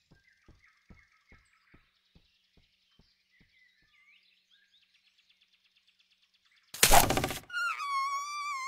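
Cartoon forest sound effects: faint bird chirps and a slow run of soft ticks that fade away, then a sudden loud whoosh about seven seconds in, followed by a wavering whistling tone.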